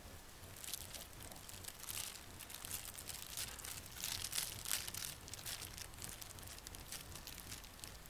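A long strip of paper rustling and crinkling as it is waved at a French bulldog puppy and snatched at, in a run of quick dry crackles that is loudest around the middle.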